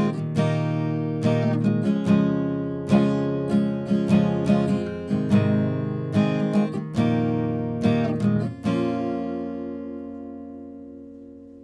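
Acoustic guitar strummed in a steady rhythm, picked up close on a USB condenser microphone. The playing ends about nine seconds in on a final chord that is left to ring and slowly fade.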